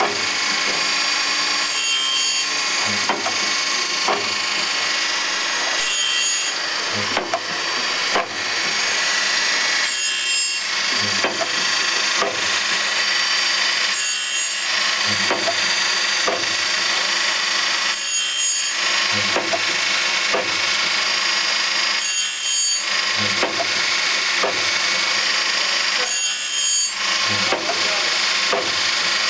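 Band saw sharpening machine grinding the teeth of a band saw blade: a steady grinding hiss with a regular working cycle, small knocks about once a second and a brighter, harsher stretch about every four seconds.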